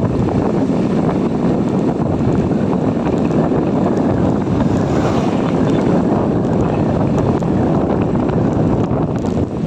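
Loud, steady wind noise buffeting the microphone on a moving motorcycle, an even rushing that stays the same throughout.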